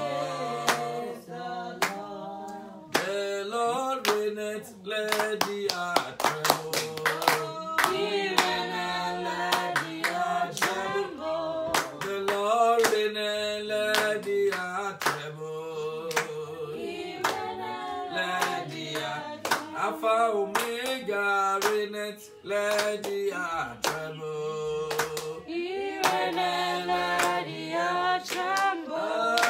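A man singing a worship song while clapping his hands in a steady rhythm.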